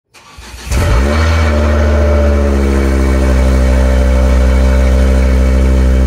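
A car engine starting: a short lead-in, then it catches about a second in with a quick rise in pitch that settles into a loud, steady idle.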